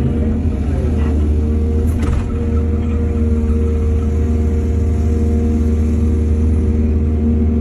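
Excavator's diesel engine running steadily, a deep drone with a steady whine above it and a couple of faint knocks about one and two seconds in.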